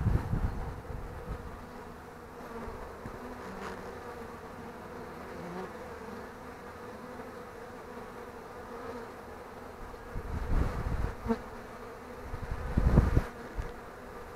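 Honeybees of a queenless colony buzzing around an open hive as the frames are handled, a steady hum. Wind gusts on the microphone rumble loudly at the start and twice in the last few seconds.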